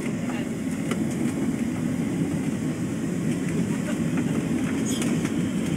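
Steady low rumble inside a jet airliner's cabin as it rolls at speed along the runway after landing, with a few faint rattles.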